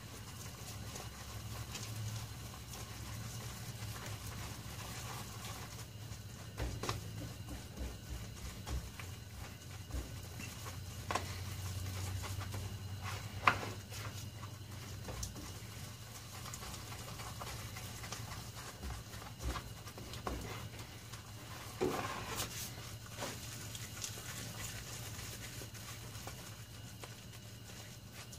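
A mixing stick scrapes and knocks in a plastic tub as stiff fiberglass-reinforced body filler is stirred, with a few sharp knocks, the loudest about halfway through, over a steady low hum.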